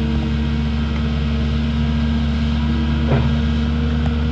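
Cat 310 excavator's diesel engine running steadily, with a single brief knock about three seconds in.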